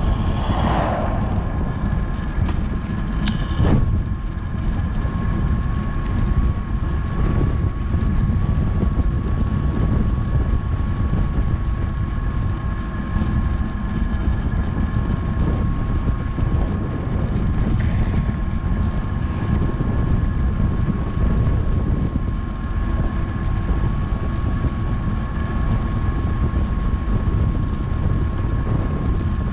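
Wind rushing over a GoPro's microphone on a bicycle coasting fast downhill, a steady low roar with a thin, high, steady whine running under it. There is one short click about three and a half seconds in.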